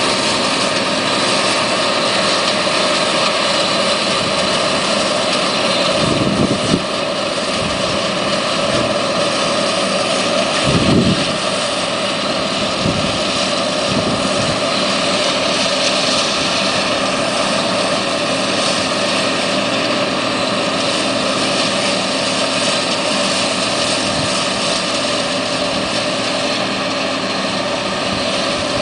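John Deere STS rotary combine harvester running steadily while harvesting: a dense mechanical din with a few steady whining tones over it. Two brief low thumps come about six and eleven seconds in.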